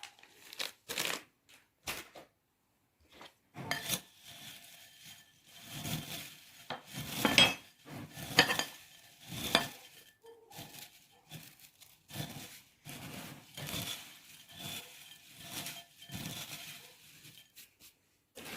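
A spoon scraping and clinking in a bowl, mixing crisp bhujia with the spices just added, in irregular strokes throughout.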